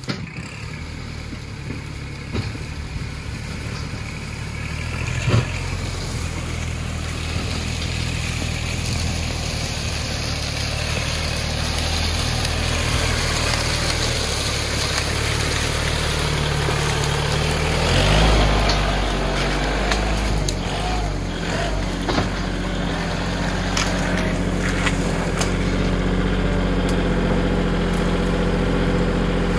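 Kubota L4018 tractor's diesel engine running steadily with a broad rushing noise over it. There is a sharp knock about five seconds in, and the engine note shifts around eighteen seconds in.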